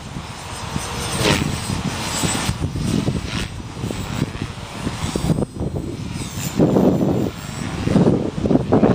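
Electric radio-controlled helicopter (Align T-Rex 450 Pro) in flight, its rotor and motor whine rising in pitch about a second in as it manoeuvres. Gusts of wind buffet the microphone throughout, loudest near the end.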